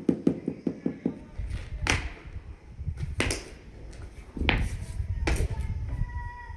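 Tile-laying work: quick light taps, about five a second, in the first second, as a floor tile is tapped down into its mortar bed, then several scraping strokes about a second apart.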